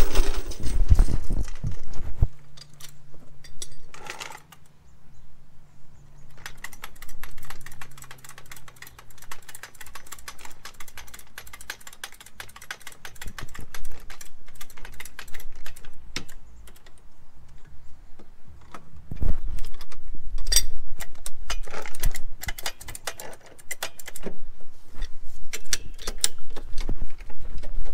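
Hydraulic trolley jack being worked under a car to let it down off its jack stand: a long run of sharp metallic clicks and rattles. Heavy low thumps come near the start and again about 20 seconds in.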